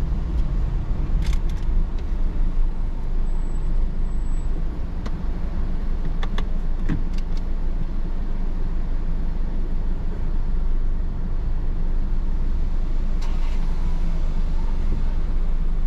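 A car driving slowly: steady low engine and road rumble, with a few light clicks and knocks.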